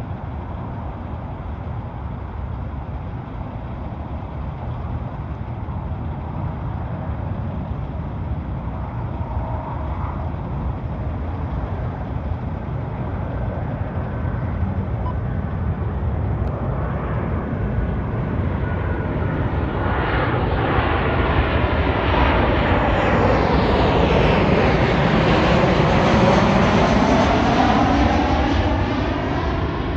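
Boeing 737-800's CFM56 jet engines on landing approach. They grow steadily louder into a sweeping, whooshing pass that is loudest about three-quarters of the way through, then begin to fade near the end.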